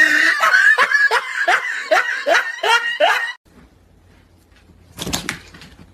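A person laughing hard in a quick run of about nine short bursts, each falling in pitch, that stops after about three seconds. A brief noisy thump comes near the end.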